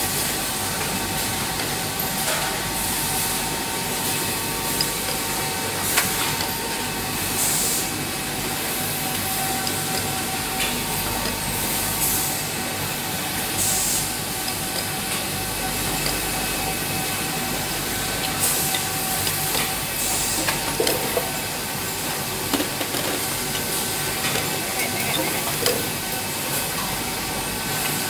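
Automatic bearing circlip assembly and inspection machine running: pneumatic cylinders let out short hisses of exhaust air every few seconds, with scattered mechanical clicks over a steady hum that carries several constant tones.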